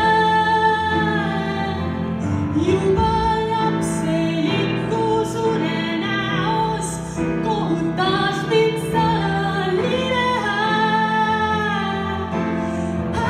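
A woman singing a slow melody into a microphone, with vibrato on held notes, accompanied by piano.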